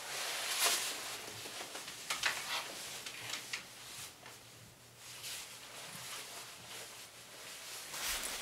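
Fabric rustling and scraping as a backpack is slipped off the shoulders and set down, in a run of irregular brushes and rustles, the loudest about half a second and two seconds in.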